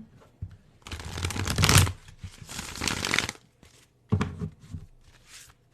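Tarot cards being shuffled by hand: two long bursts of cards rubbing and fluttering in the first half, then a few shorter flutters about four seconds in.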